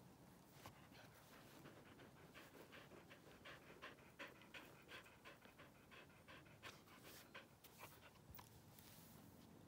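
A dog panting faintly in quick, short breaths.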